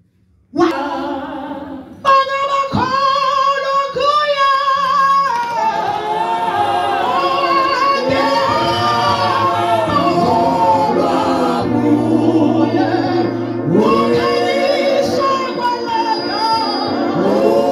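Gospel singing by a group of voices with a woman's voice leading, starting about two seconds in and running on steadily.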